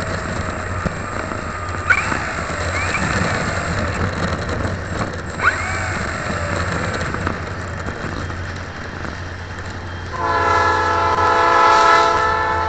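Steady rush of wind and propeller noise picked up by a keychain camera riding on an RC model aeroplane in flight, with a few brief chirps. About ten seconds in, a loud chord-like horn blast of several held tones starts abruptly and lasts about two seconds.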